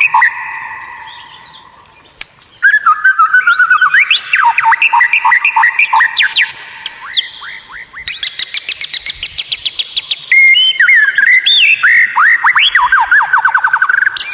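White-rumped shama singing a loud, varied song of rapid repeated whistled notes, upward and downward glides and trills. The song breaks off briefly near the start, resumes about two and a half seconds in, and has a very fast high trill around the middle.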